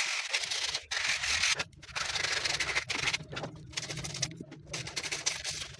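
Scraping and rubbing on the compressor's small motor parts as they are cleaned by hand, in irregular strokes with short breaks between them.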